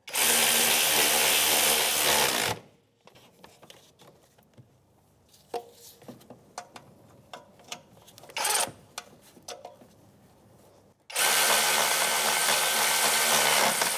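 Cordless power ratchet with a half-inch socket running nuts down onto their studs, in two runs of about two and a half and three seconds, with light clicks of handling between them.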